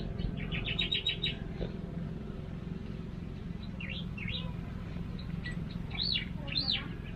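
Birds calling: a quick run of about eight chirps near the start, then a few arching whistled notes in the middle and twice near the end, over a steady low hum.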